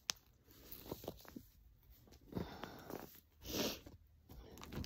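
Faint handling sounds of yarn skeins being set down and the next one taken from the bag, with a sharp click at the start and a short, louder rush of noise about three and a half seconds in.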